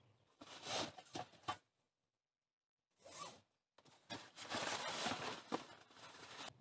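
A nylon backpack being handled and closed up: fabric rustling and rasping in bursts, with a longer stretch of it in the second half.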